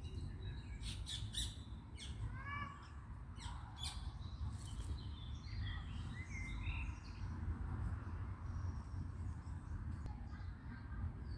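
Small birds chirping and calling in short bursts, busiest in the first half, over a steady low background rumble.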